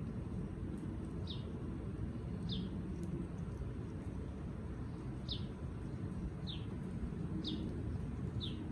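A bird gives short, high chirps that fall in pitch, six of them at roughly one-second intervals with a longer gap in the middle, over a steady low rumble of background noise.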